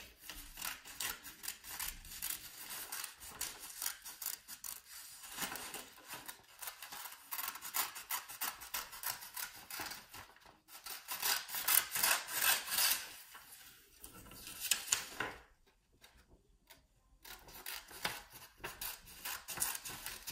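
Kids' scissors snipping through green construction paper in a long run of short cutting strokes, with the paper rustling as it is turned. The cutting stops for about two seconds roughly three quarters of the way through, then resumes.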